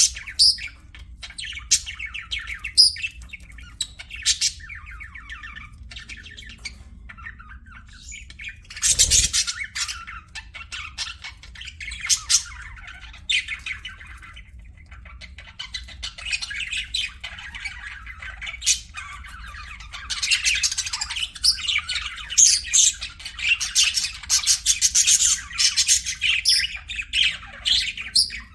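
Pet budgerigars chirping and chattering in a string of short, quick calls, with a loud burst about nine seconds in and busier, louder chatter in the second half.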